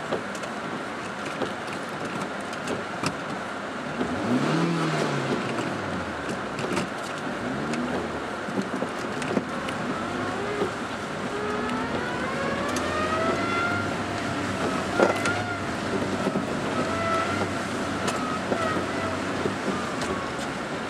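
Car driving on a wet road, heard from inside the cabin: steady road and rain noise with scattered sharp ticks of rain on the car. The engine revs up and drops back about four seconds in, then climbs steadily in pitch from about ten to fourteen seconds in as the car accelerates.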